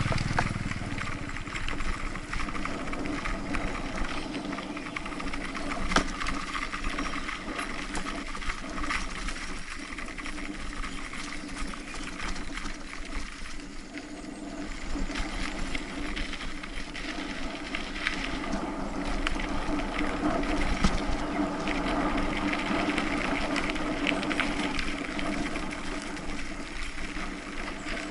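Mountain bike rolling along a dirt trail: a continuous rattle and tyre noise, with scattered knocks as the bike bumps over the rough ground.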